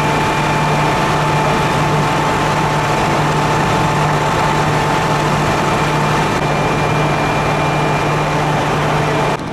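Heavy truck diesel engine running steadily, with a constant low hum and a steady higher whine over it. The sound starts and cuts off abruptly.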